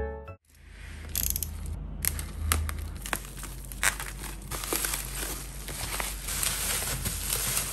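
Plastic bubble wrap crinkling and rustling with frequent sharp crackles as it is slit with a utility knife and pulled open by hand.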